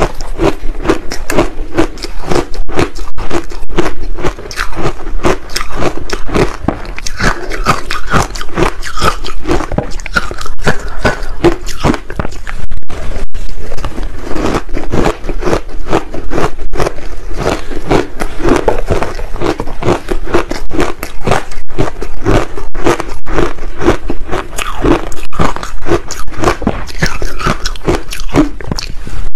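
Soft frozen ice balls coated in green barley powder being bitten and chewed close to a clip-on microphone: a dense, continuous run of loud crunching and scraping bites.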